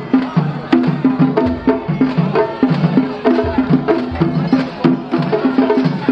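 Japanese festival drum music (matsuri bayashi): a quick, even beat of drum strikes mixed with sharp wooden clacks, kept up without a break.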